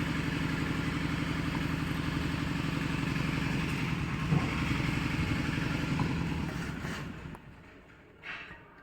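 A small engine running steadily with a fast pulsing beat, fading away about seven seconds in.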